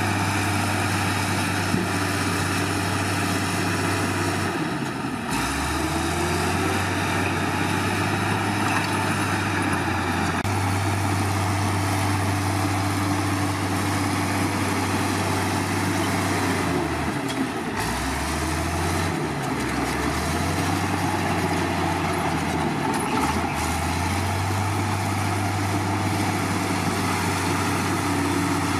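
Heavy diesel engine running steadily with a low hum. Its pitch drops briefly and comes back up several times.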